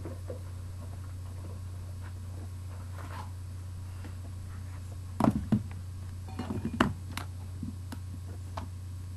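Steady low electrical hum with a few knocks and clatters about five to seven seconds in, as of objects being handled close to the microphone.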